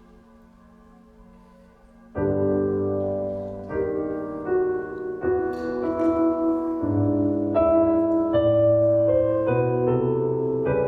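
Piano music: faint held notes, then about two seconds in loud chords start, with a slow melody moving over them.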